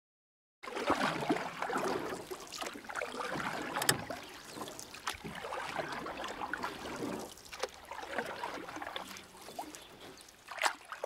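Water sounds, splashing and trickling with scattered sharp clicks, starting about half a second in and cutting off suddenly at the end.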